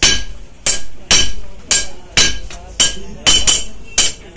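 Hand hammers striking a red-hot steel knife blade on an anvil, forging it into shape. Two smiths take turns striking, giving sharp metallic blows about two a second, each with a brief ring.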